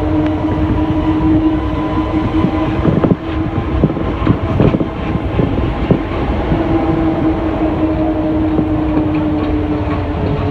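Alstom NS-16 rubber-tyred metro train running between stations, heard from inside the car: a steady whine with several pitches over a dense running rumble. A series of sharp knocks and clicks comes between about three and six seconds in.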